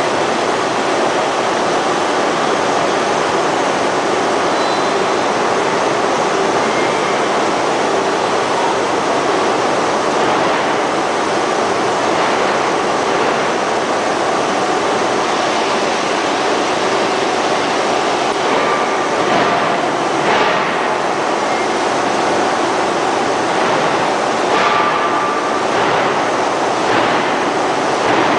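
Steady, loud roar of forge-shop machinery: an even noise with no clear beat and no distinct hammer blows. A few faint clanks come through about two-thirds of the way in and again near the end.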